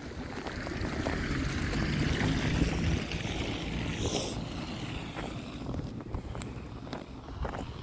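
Storm wind buffeting the microphone, a dense low rumble that swells about two to three seconds in and eases toward the end, with a few light clicks.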